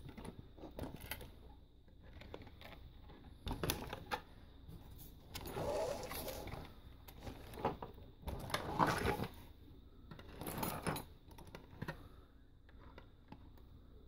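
Faint, irregular rustling and clicking handling noise from a hand-held camera being moved around a model truck, with a few sharp clicks and some louder bursts.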